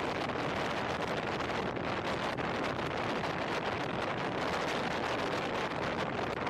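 Steady wind rushing over the microphone of a camera mounted on a moving car, mixed with tyre and road noise at highway speed.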